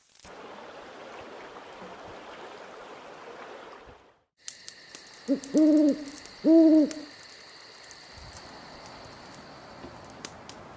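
An owl hooting twice, about a second apart, two low arching hoots over a faint steady high whine. Before the hoots there are about four seconds of steady rushing noise that cuts off suddenly.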